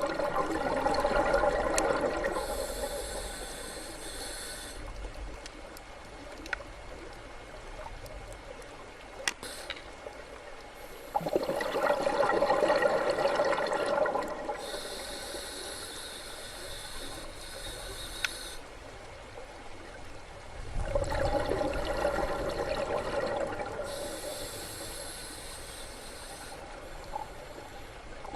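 Scuba diver breathing through a regulator underwater: three slow breath cycles, each a rush of exhaled bubbles followed by the hiss of an inhale.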